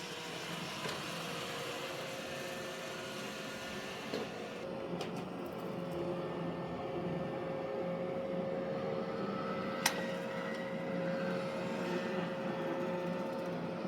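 Roomba robot vacuum running, a steady motor whir with a constant tone through it and a single click about ten seconds in.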